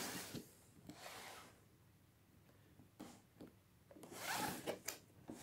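Cardboard box being turned and slid on a wooden tabletop: a few short, faint rubbing scrapes with light knocks in between.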